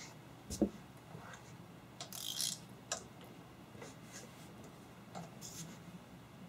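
Scattered light clicks and taps of small metal parts and tools being handled while shim stock is fitted into the magnetron gap, with one low thump about half a second in and a short hissy scrape around two seconds in.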